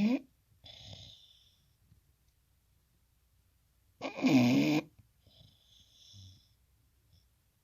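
Bulldog snoring in its sleep: the tail of one loud, pitched snore at the very start and another about four seconds in, each followed by a softer, airy breath.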